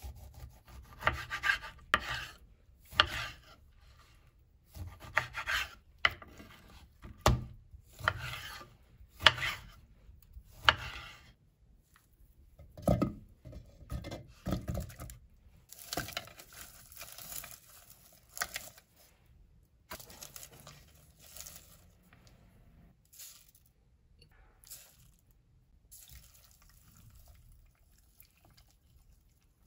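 Irregular rubbing and handling noises in short bursts, several a second at first, becoming sparser and fainter in the last third.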